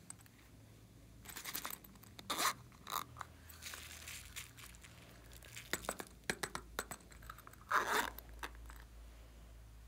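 A plastic avocado-shaped case being handled and prised open by hand: irregular crunchy clicks and scrapes. The loudest burst comes about eight seconds in, as the case is opened.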